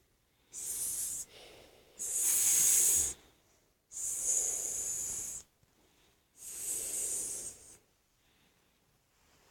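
A person imitating a snake with their mouth: four long hisses, each lasting a second or so, with short pauses between them.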